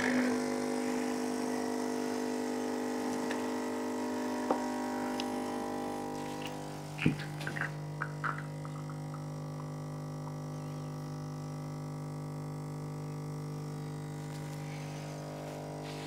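De'Longhi ECP3420's vibratory pump humming steadily as it pushes water through the coffee puck to pull an espresso shot. About six seconds in the hum shifts to a lower, steadier note, and a few faint ticks follow.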